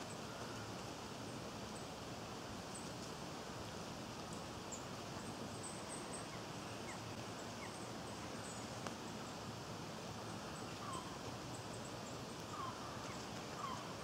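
Outdoor garden ambience: a steady background hiss with faint, very high bird chirps scattered through it. A few short, slightly falling bird calls come in during the last few seconds.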